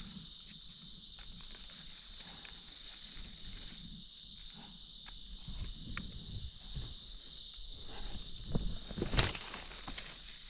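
Steady high insect drone from the forest, with footsteps and rustling as someone moves through the undergrowth. A sharper crunch comes about nine seconds in.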